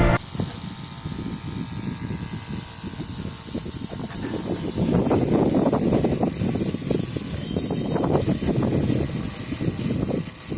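Water jet from a homemade motor-pump pressure washer spraying a motorbike: an uneven rushing hiss and splatter that gets louder about halfway through.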